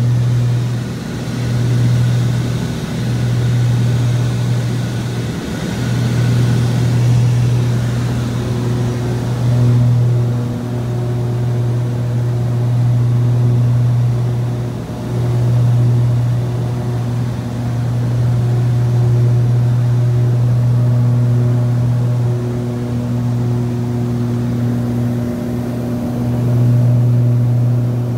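Cabin sound of the Piper PA-31 Navajo's twin piston engines and propellers in flight: a steady low drone that swells and fades every few seconds, the beat of two propellers turning at slightly different speeds. A rush of air over the fuselage sits on top of it and eases after about nine seconds.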